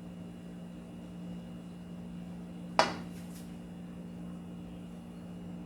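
A single sharp clink of kitchenware about three seconds in, over a steady low hum.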